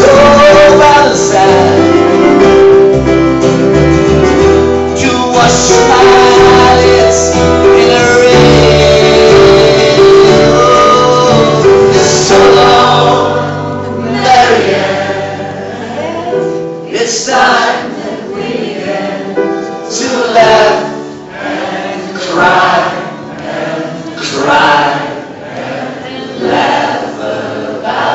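Acoustic band playing live: acoustic guitar and double bass under several voices singing together in harmony. About halfway through the double bass drops out and it turns quieter, with strummed guitar and the voices carrying on.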